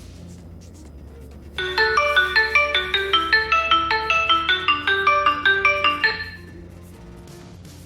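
Smartphone ringtone: a quick marimba-like melody of short, bright notes starts about a second and a half in and stops after about four and a half seconds. The phone is ringing because the watch's find-phone function has been triggered.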